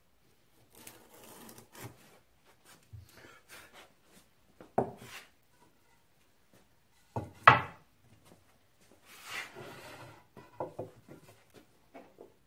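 Wood being worked by hand: irregular rubbing and scraping strokes with a few sharp knocks, the loudest about seven and a half seconds in.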